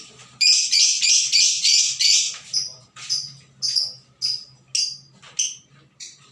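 An excited lovebird chattering in shrill, high-pitched chirps: a fast unbroken run starting about half a second in, then single sharp chirps about every half second that stop shortly before the end.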